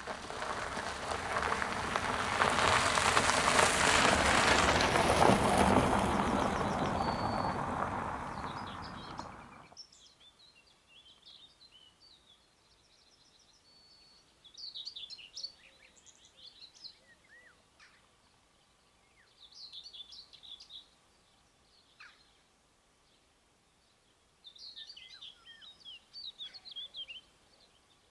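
A loud rushing noise of a vehicle passing close by swells, holds and fades over about nine seconds, then cuts off abruptly. Birds chirp and sing faintly for the rest of the time.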